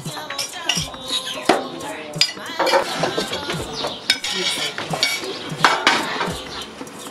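Serving tongs and plates clinking, knocking and scraping against a foil tray and china plates as rice and chicken are dished out, with many short sharp clinks.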